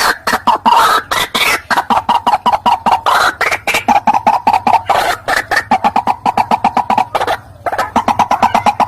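White-breasted waterhen calls: a fast, steady run of short clucking notes, with a brief pause about seven and a half seconds in.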